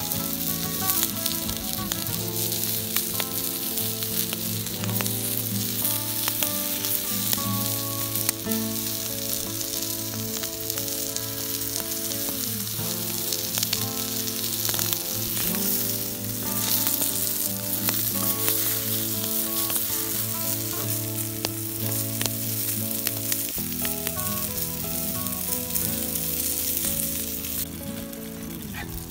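Food sizzling and frying in a pan over a campfire, a steady hiss, under background music of sustained chords that change every second or two.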